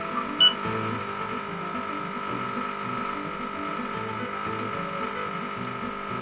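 Espresso machine pump running steadily with a buzz while the shot pours into the cup. About half a second in, the coffee scale gives one short electronic beep.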